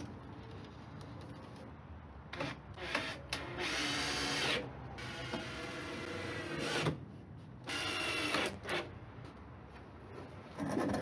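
Makita cordless drill running in several short bursts into an OSB wooden box, the two longest lasting about a second each. A wooden knock near the end.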